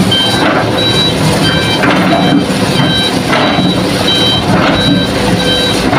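Hitachi excavator's diesel engine working under load as it loads a dump truck with soil, with short high electronic beeps repeating about twice a second at a few different pitches.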